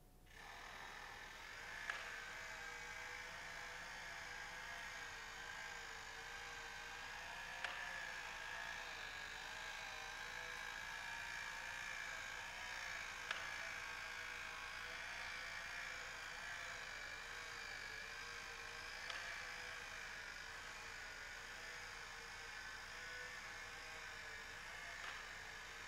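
Small electric motor starting up, then whirring steadily with a slightly wavering pitch, with a sharp click about every six seconds: the drive of a wheeled, lamp-studded kinetic sculpture moving across the floor.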